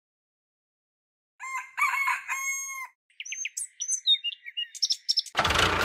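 After more than a second of dead silence, a rooster crows and then birds give a run of short chirps and whistles, with no background noise at all. A louder, steady sound cuts in suddenly just before the end.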